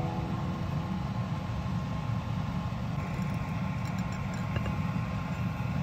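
Steady low mechanical hum, with a few faint ticks about four seconds in.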